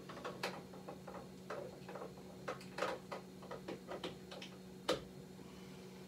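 Remington 700 bolt being fitted and worked in the action: a run of irregular metallic clicks and clacks, with one sharp click about five seconds in.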